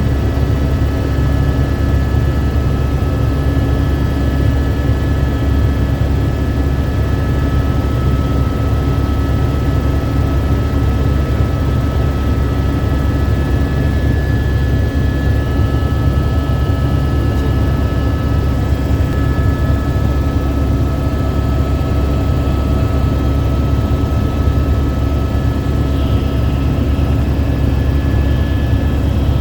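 Helicopter in flight, its turbine and rotor running steadily at a constant loud level with a steady high whine, heard from inside the cabin.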